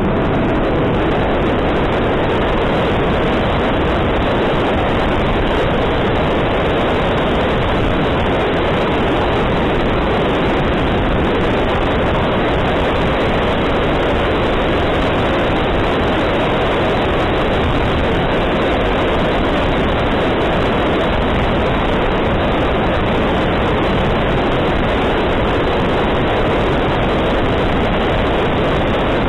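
Steady rushing noise of an E-flite F-15 RC jet in flight, heard from a camera mounted on the airframe: airflow over the microphone and the jet's electric ducted fan blend into one even roar with no distinct whine.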